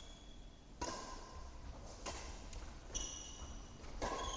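Badminton rally: a shuttlecock struck back and forth by rackets, four sharp hits about a second apart, with short high squeaks between them.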